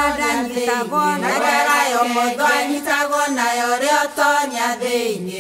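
Background music: a chant-like song with voices singing in a language other than English.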